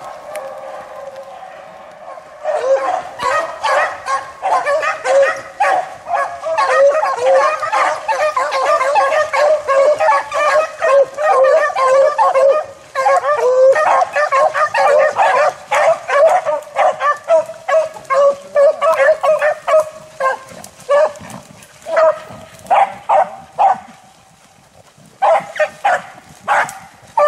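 A pack of beagles baying on a rabbit's scent trail. Several voices overlap in a dense chorus from about two seconds in. Later they break into separate barks, with a short pause before a last flurry near the end.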